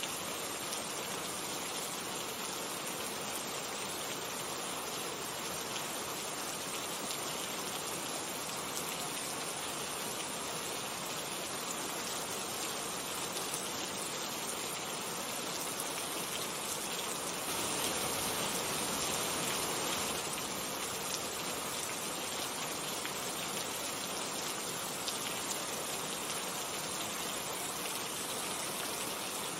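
Steady rain falling, with faint individual drop ticks. It swells louder for a couple of seconds a little past halfway through, then settles back.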